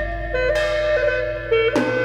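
Background music: a melody of held notes stepping up and down over a steady low tone.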